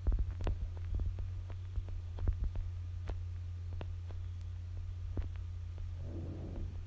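Steady low hum with scattered faint clicks, and a brief muffled sound about six seconds in.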